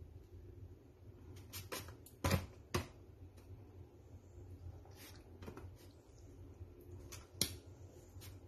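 Metal kitchen tongs clicking and tapping against a plastic food tray while marinated chicken pieces are turned in their sauce: a scattering of short, sharp clicks, loudest about two seconds in, over a low steady hum.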